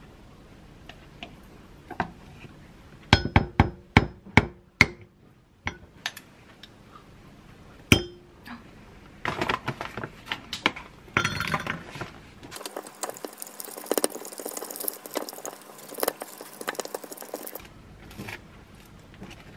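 Wooden spoon knocking against a glass mug: a quick run of sharp, ringing clinks about three seconds in and one more near eight seconds, as Greek yogurt is scooped in. After that comes a longer stretch of rapid scraping and clicking as blueberries are stirred into the yogurt in the glass.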